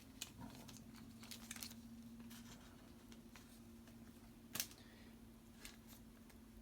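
Quiet handling of a trading card and its plastic sleeve: a few faint clicks and rustles, with one sharper click about four and a half seconds in, over a low steady hum.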